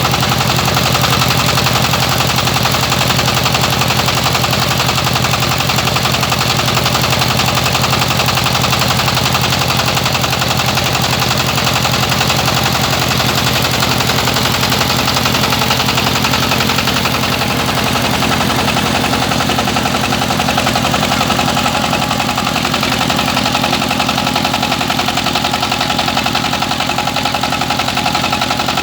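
Rice milling machine running steadily: a loud, even mechanical din with a rapid, regular engine-like pulse. Its tone shifts slightly a little past halfway.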